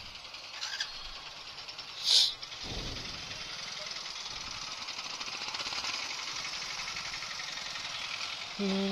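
Motorcycle engine running with wind and road noise as the bike taxi pulls away carrying a passenger, with a short sharp hiss about two seconds in. A tune of stepped rising notes starts just before the end.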